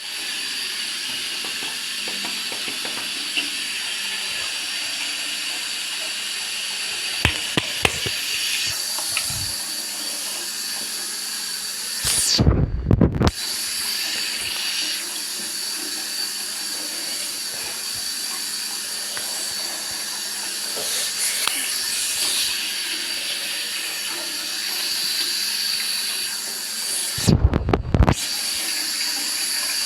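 Water rushing down a water slide as a steady hiss, twice broken by a second or so of loud, muffled low thumps during which the hiss cuts out. A few sharp knocks come about a quarter of the way in.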